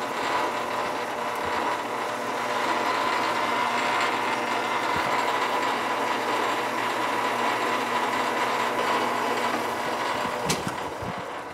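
Bench metal lathe running at raised spindle speed with a slow feed, taking a light finishing cut of about six thousandths with cutting oil: a steady machine hum with a constant whine. A click comes near the end, and the sound then dies away.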